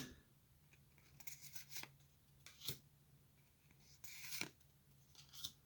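Faint, brief rustles and scrapes of Pokémon trading cards being handled and slid against each other, several separate short strokes.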